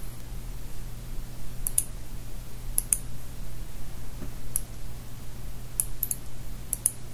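A computer mouse button clicking about ten times, several of the clicks in quick pairs like double-clicks. Under them runs a steady low electrical hum and hiss.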